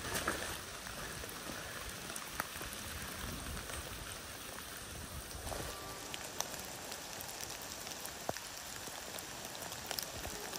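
Steady rain falling on a wooded trail and into a puddle, with single drops ticking sharply now and then.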